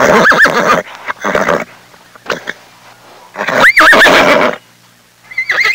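Horse whinnying in loud calls with a quavering, warbling pitch: one at the start, a longer one about three and a half seconds in, and another beginning near the end.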